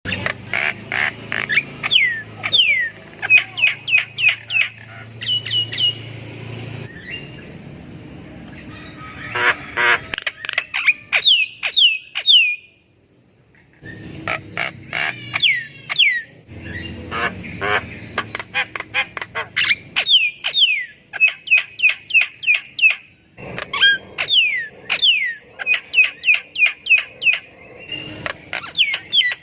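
Javan myna (jalak kebo) singing nonstop in long runs of quick, clear whistles that slide down in pitch. Harsh rasping, squawky notes are mixed in, with a short pause about halfway through.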